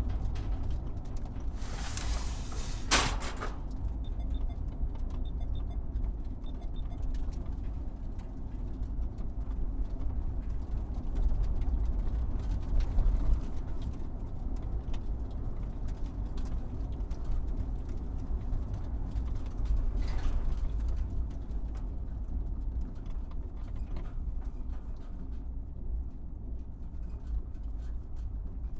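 A truck driving over a rough, bumpy surface: a steady low rumble with scattered knocks as it jolts over bumps. A louder rush of noise comes about two to three seconds in, and a weaker one around twenty seconds.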